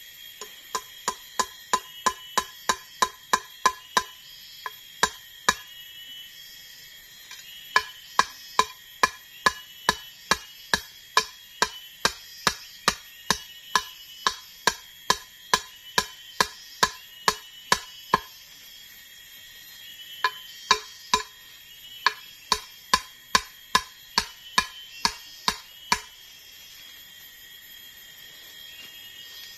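Repeated hammering with a chunk of wood, about two to three sharp wooden knocks a second in three long runs with short pauses. Insects trill steadily in the background.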